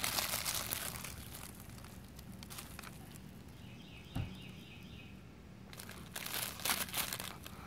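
Faint crinkling and rustling of a paper-wrapped brick of firecrackers being handled and turned, with one short click about four seconds in.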